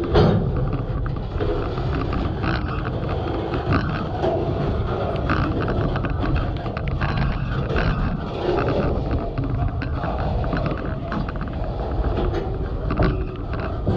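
Ontario Northland manifest freight train's cars rolling slowly past at close range, a steady rumble with many irregular clicks and knocks, muddied by crackly distortion from rain getting in around the microphone.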